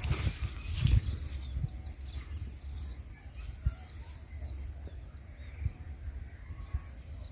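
Munias giving short, high chirps again and again over a steady high insect buzz, with low wind rumble and a couple of knocks at the start and about a second in.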